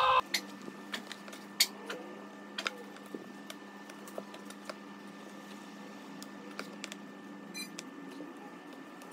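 A shouted voice cuts off right at the start, then light clicks and taps from an Apple Pencil and an iPad Pro in its case being handled, the sharpest about one and a half seconds in. A steady low hum runs underneath.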